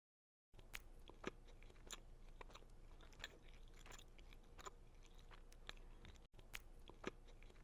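Faint chewing of a soft frosted sugar cookie: scattered small mouth clicks and smacks over a low steady hum, starting about half a second in.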